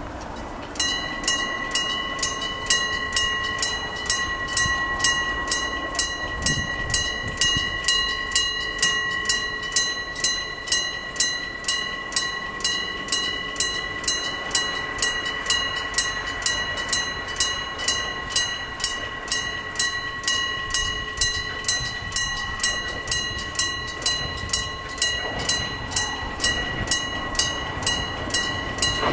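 Electric bell of an old-style level crossing ringing its warning that a train is coming. It starts about a second in and goes on steadily at about two strokes a second, each a sharp clang with a ringing metallic tone.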